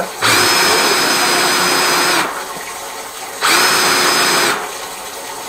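An electric drain-cleaning machine's motor runs in two bursts, about two seconds and then about one second, each with a steady whine and stopping abruptly.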